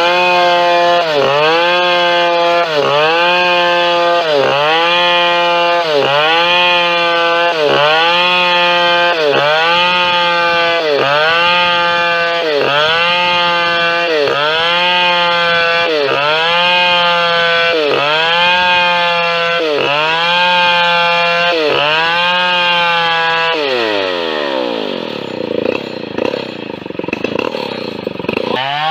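Two-stroke chainsaw running at high revs, its pitch dipping briefly about every second and a half. Near the end the revs fall away and the engine runs low and uneven, then it starts to climb again.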